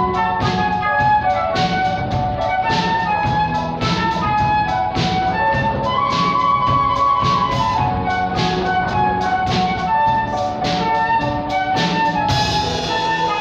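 Concert flute playing a pop melody over a drum kit keeping a steady beat and a piano playing bass notes and chords. The flute holds one long note about six seconds in, and a cymbal crash comes near the end.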